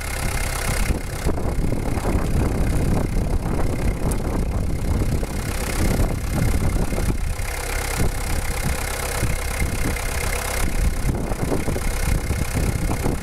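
Diesel engine idling steadily while it runs on injector cleaner drawn from a small bottle in place of the fuel tank, flushing the injection circuit.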